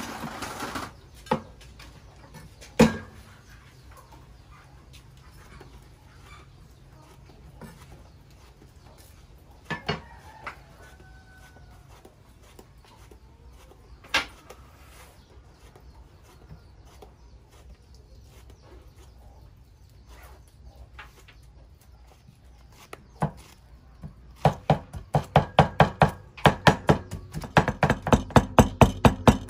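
Kitchen knife chopping garlic on a round wooden chopping board: a few single knocks spread out, then near the end a fast, steady run of chops, about four or five a second, as the garlic is minced.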